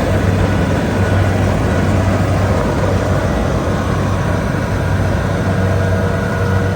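Kubota DC70 rice combine harvester's diesel engine running steadily at a constant speed.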